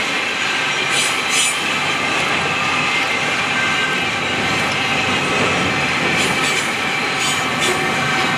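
Empty hopper freight train rolling past on the rails, being pushed from the rear by three QL-class diesel locomotives: a steady rumble of wheels with a thin high squeal, and a few sharp clicks about a second in and again near the end.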